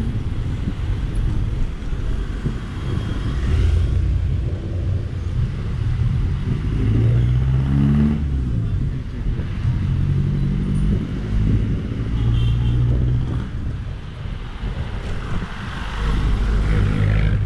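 Road traffic heard from a moving electric scooter: a steady low rumble, with the engines of nearby vehicles coming through in the middle stretch and one rising in pitch as it speeds up about eight seconds in.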